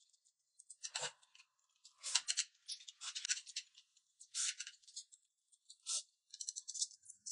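A woman slurping and chewing a mouthful of noodles, in several short bursts of wet slurping noise.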